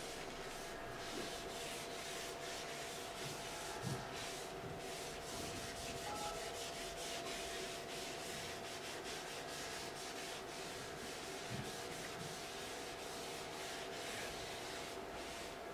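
A small pad rubbing oil into the end grain of a wooden cutting board, in repeated back-and-forth strokes that make a soft, continuous scrubbing hiss.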